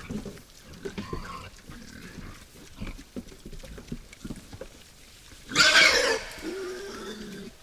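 Wild boars grunting at a feeder, with one loud, harsh call about five and a half seconds in, followed by a lower drawn-out call.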